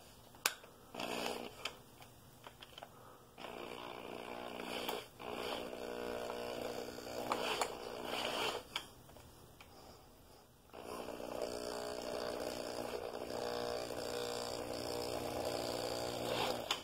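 Electric hand drill running a long bit into the seized worm-gear shaft of a Bridgeport mill's J-head rotation housing. The motor runs in a few short bursts at first, then in longer steady runs broken by brief stops, the longest run near the end.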